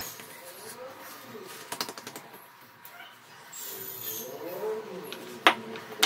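Hands pressing and patting soft dough on a marble counter and handling a glass oil bottle: a cluster of light taps about two seconds in, and one sharp knock near the end as the bottle is set down on the stone. A faint voice runs in the background.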